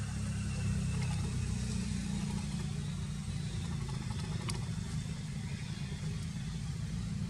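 Steady low rumble of an engine running, with a couple of faint clicks, one about a second in and one halfway through.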